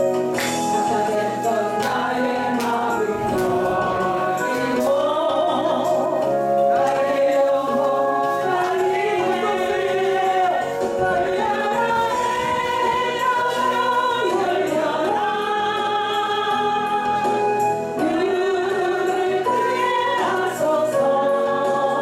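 A woman singing a gospel praise song into a microphone with instrumental accompaniment, her voice held on long notes with vibrato.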